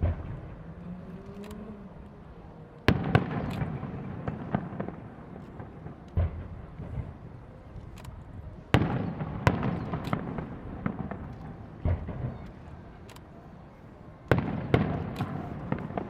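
Aerial firework shells bursting: a sharp boom every few seconds, about five in all, each followed by crackling that fades away.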